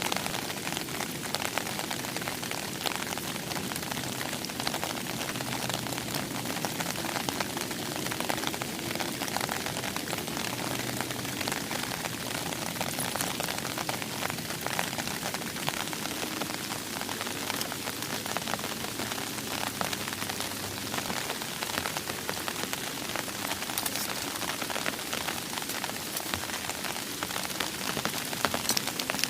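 Steady rain falling, a dense continuous patter of drops striking a surface, with sharper individual drop ticks throughout.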